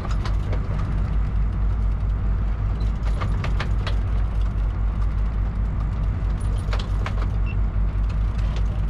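Steady low drone of a sportfishing boat's engines under way, with a few sharp clicks or knocks about three seconds in and again near seven seconds.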